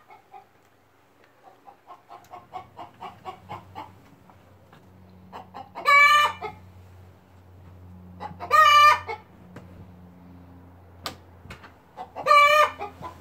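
A lone chicken separated from its flock calls for the others: a run of soft clucks, then three loud, drawn-out squawks a few seconds apart.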